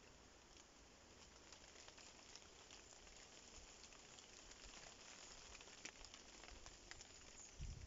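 Near silence: faint woodland ambience with scattered soft ticks.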